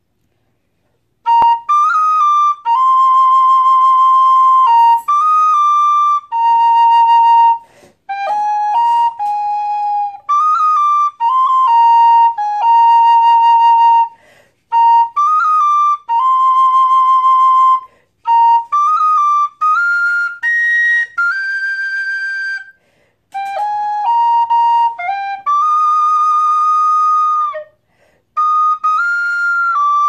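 High B-flat Irish tin whistle with a metal body playing a slow, ornamented melody, starting about a second in. Held notes waver with vibrato, quick grace-note flicks sit between notes, and short breath pauses separate the phrases.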